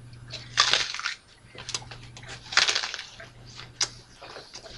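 Raw onion being bitten into and chewed: two loud wet crunches about two seconds apart, with smaller crisp clicks of chewing between and after.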